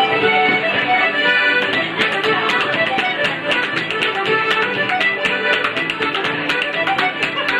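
Irish traditional dance tune played on fiddle, accordion and guitar with a bodhrán, with sharp percussive taps keeping the beat.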